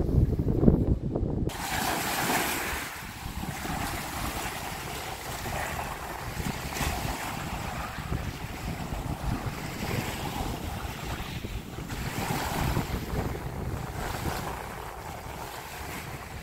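Wind rumbling on the microphone, then, from about a second and a half in, small lake waves washing onto a sandy shore under a strong wind, with the wind still buffeting the microphone.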